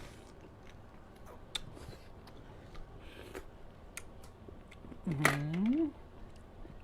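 Blood cockles being eaten: scattered sharp clicks of the shells being handled and opened. About five seconds in, a short voice sound from the eater rises in pitch.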